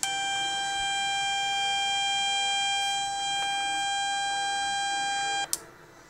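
Burglar-alarm circuit built on a Nexxtech 200-in-1 electronic lab kit sounding through the kit's speaker: one steady electronic tone at a single pitch, held for about five and a half seconds and then cut off suddenly.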